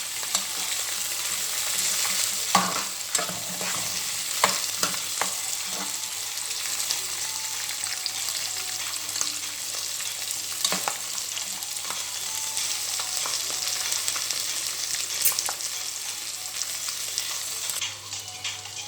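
Chopped vegetables sizzling in hot oil as they are stir-fried, with a utensil scraping and knocking against the pan now and then. The sizzle eases near the end.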